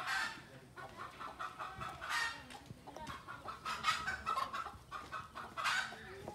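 Chickens clucking in a run of short calls, with a louder call every couple of seconds.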